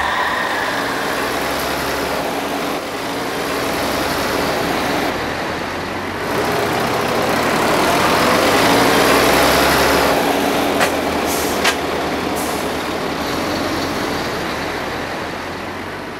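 Heavy tanker truck running, a steady engine and road rumble that swells as it passes, with a couple of sharp clicks shortly after. The sound fades out at the end.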